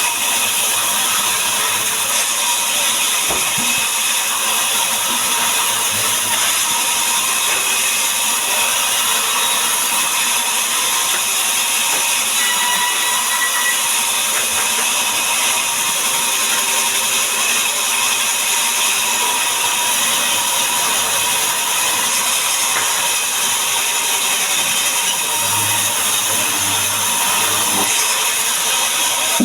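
A power saw running steadily through timber, a constant high machine sound without a break.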